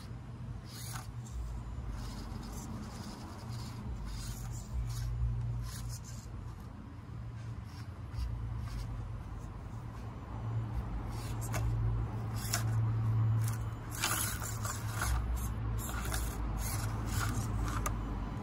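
Axial SCX24 micro crawler on its stock motor creeping over rocks: tyres and chassis scraping and clicking on stone, over a low hum that swells and fades, strongest in the second half.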